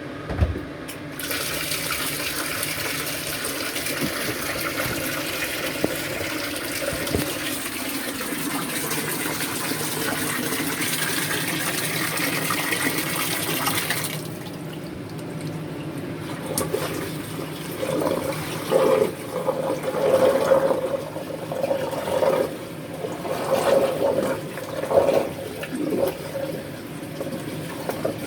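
Water running steadily from a tap for about thirteen seconds, then shut off abruptly, followed by irregular splashing and sloshing in the water.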